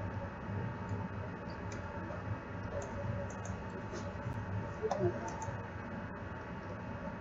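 Steady low hum of room noise with a few faint, short clicks scattered through it, a little clearer about five seconds in.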